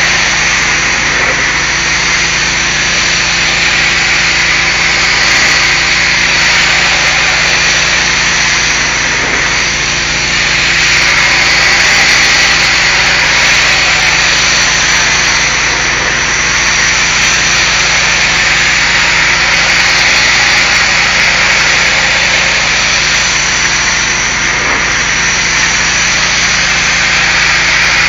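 Pressure washer spraying a brick wall: a steady, loud hiss of high-pressure water with a steady low engine hum underneath.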